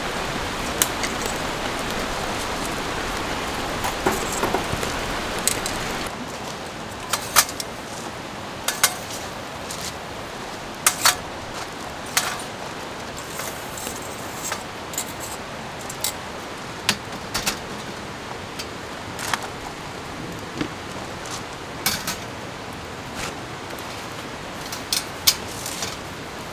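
A steady hiss of rain and a flaring wood fire, then, after a cut about six seconds in, a quieter hiss with scattered sharp clinks and pops as tongs move glowing charcoal around a stainless steel grill box.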